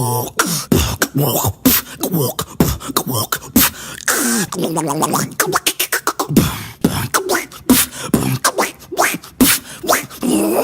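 Beatboxer making vocal sound effects: a quick run of mouth clicks and pops mixed with gliding, warbling pitched voice sounds, and a stretch of hissing noise around the middle.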